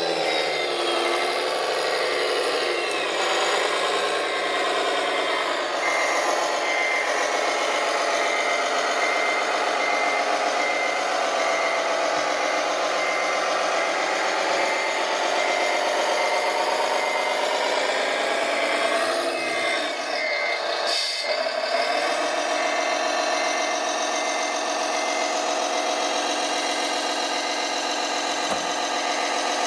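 Radio-controlled model construction machine running, its electronic sound system giving a steady engine drone with a reversing beeper beeping at a regular pace.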